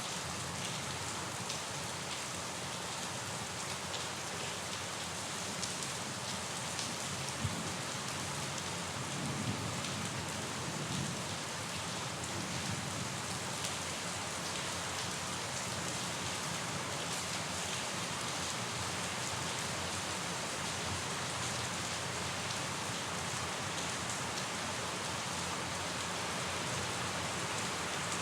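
Steady rain falling and pattering on surfaces, with scattered individual drops ticking and a few soft low thumps a third of the way in.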